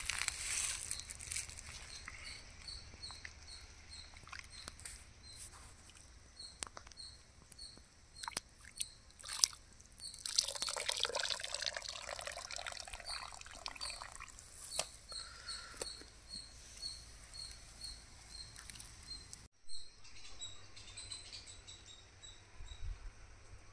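A duck being plucked by hand: scattered rustles and soft tearing as feathers are pulled out, with a louder, longer rustle around the middle. A bird chirps steadily in the background, about two short high chirps a second.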